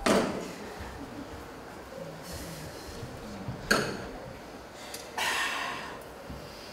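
Short breathy bursts like sharp exhales, a few seconds apart, with a single knock about halfway through.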